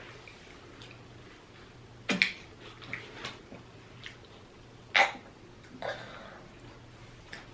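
Mouth smacking while chewing: a handful of short, sharp smacks spaced irregularly about a second apart, the loudest about two and five seconds in.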